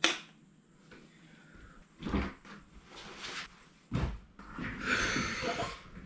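Small-room handling sounds of a person moving about: a few knocks and thumps, the loudest about two and four seconds in, then a rustling scrape about five seconds in as he settles into an office chair.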